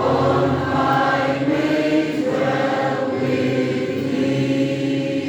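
Church congregation singing a hymn together, in slow, long-held notes.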